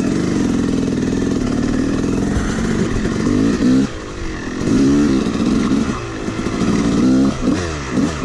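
Two-stroke dirt bike engine pulling away under throttle, its pitch climbing steadily at first, then rising and dropping several times as the rider goes through the gears and rolls the throttle on and off, with quicker short revs near the end.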